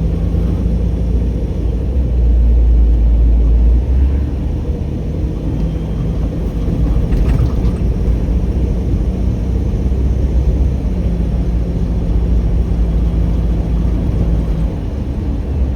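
Car driving on the road, heard from inside the cabin: a steady low rumble of tyres and engine with a steady hum, swelling for a couple of seconds about two seconds in.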